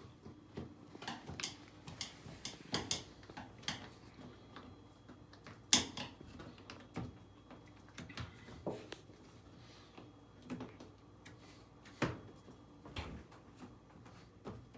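Irregular clicks, taps and light knocks as hands and a small tool work the rubber door seal of a Samsung front-loading washer onto the lip of its front panel. One sharp knock about six seconds in is the loudest.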